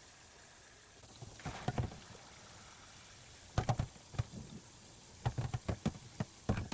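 Dishwashing at a kitchen sink: running water with clusters of clinks and knocks from bowls and utensils being handled, three bursts of clatter over the few seconds.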